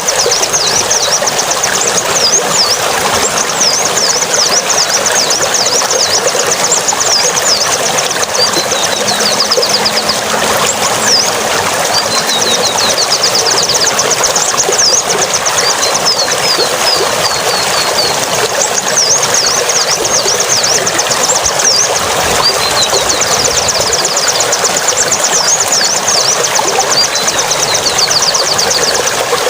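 A songbird singing runs of fast, repeated high chirps and trills, each run lasting a few seconds with short breaks between, over a steady rushing hiss.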